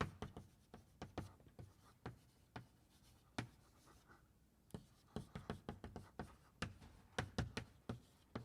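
Chalk writing on a blackboard: a run of short, irregular taps and scratches, with a brief lull in the middle.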